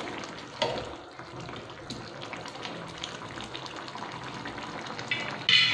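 Thin potato-tomato curry gravy bubbling in a non-stick pan over a high gas flame, with a slotted spatula stirring and scraping through it. A brief, louder high squeak comes near the end.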